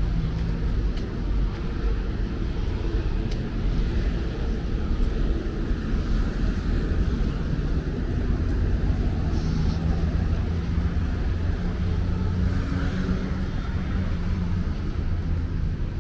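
Steady rumble of road traffic along a busy city street.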